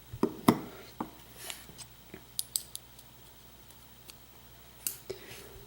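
Scattered light metallic clicks and taps from small lock pins and the tools handling them, as the pins of a disassembled pin-tumbler lock are picked up and set down one by one.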